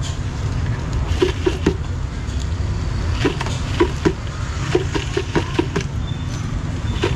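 Steady low rumble of street traffic, with short clicks and rustles of plastic sauce cups and a plastic bag being handled.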